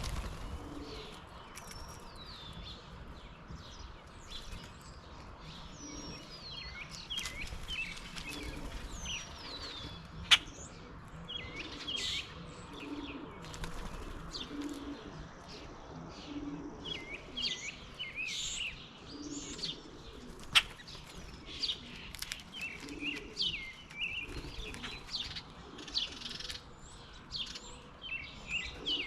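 Wild songbirds at a backyard feeder chirping and calling in many short, overlapping high notes, with a low note repeating about once a second through the middle. Two sharp clicks stand out, about a third and about two-thirds of the way through.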